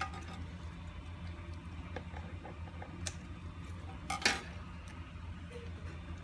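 Light taps and clinks of hard objects being handled, with one louder clatter about four seconds in, over a steady low hum.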